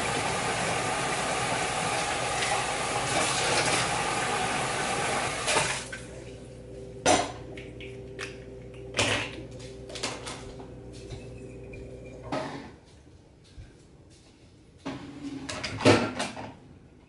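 Kitchen tap water running steadily for about five and a half seconds, then shut off, followed by scattered clinks and knocks of dishes and utensils being handled.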